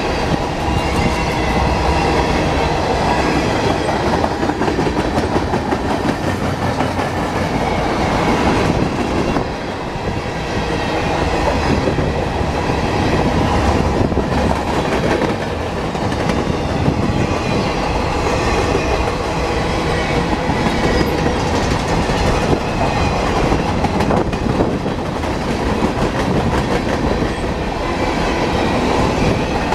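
Mixed freight train of hoppers, boxcars and tank cars rolling past at close range, its steel wheels rumbling and clattering on the rails in a steady, loud stream.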